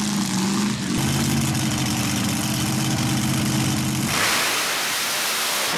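Mud-racing buggy's engine running with a steady rumble, then about four seconds in going to full throttle in a loud rush of noise as the car launches through the mud pit.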